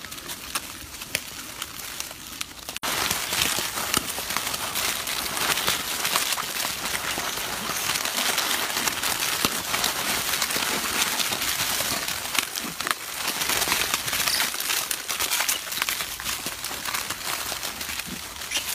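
Plastic snack wrappers crinkling and crackling as macaques grab and tear at packaged snack cakes, a dense rustle full of small clicks that starts abruptly about three seconds in. Before that, only faint scattered clicks.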